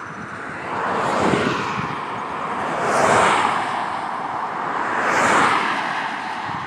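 Cars passing by on a nearby road, three in a row, each swelling up and fading away.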